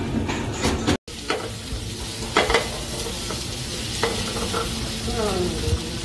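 Chicken pieces and potato chunks sizzling in a frying pan over a gas flame, starting after a brief gap about a second in. A wooden spoon knocks against the pan several times as they are stirred, loudest about two and a half seconds in.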